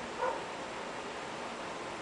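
Steady background hiss, with one brief, short pitched yip about a quarter second in.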